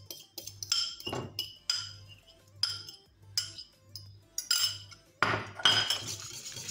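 Metal wire whisk clinking against a plate and a ceramic mixing bowl in single sharp taps as mashed banana is knocked off into the bowl, then rapid continuous whisking against the bowl near the end.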